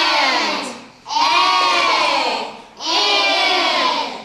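A group of children's voices calling out together in unison. Long drawn-out shouts follow one after another, about every second and a half, three in all.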